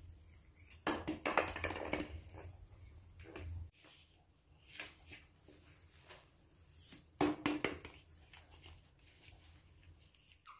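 Light taps and scuffs as a baby monkey moves about with a small plastic ball on a concrete floor, in two clusters about a second in and about seven seconds in, with scattered single taps between.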